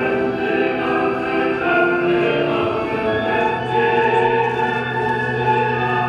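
Music with operatic singing in long held notes, playing steadily.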